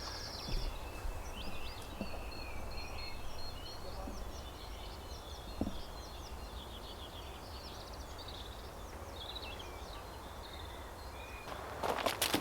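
Songbirds chirping and trilling, several overlapping calls repeated throughout. Near the end come a few sharp crackling clicks, like steps or rustling in the garden.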